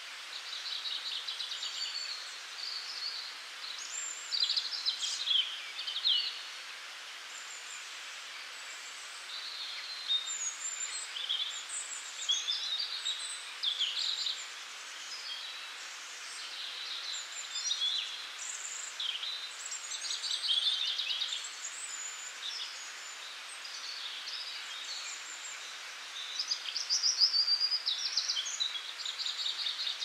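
Spring birdsong chorus: several small songbirds singing in quick trills and short chirping phrases, overlapping and coming one after another, over a steady background hiss.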